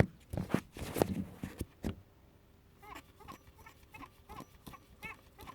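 A pump squeaking in short, repeated chirps, about three or four a second, starting about three seconds in after a few loud knocks. The squeak does not sound like a bearing noise.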